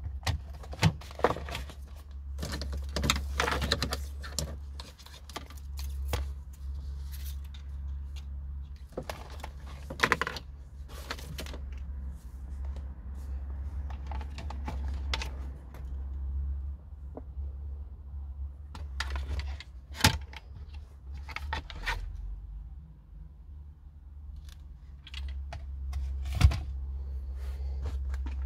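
Irregular clicks and short rattles, like small hard objects being handled, over a steady low hum.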